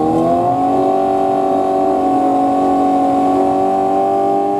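Sport bike engine held at steady high revs on the drag strip start line before launch, the pitch holding level after a brief dip just after the start.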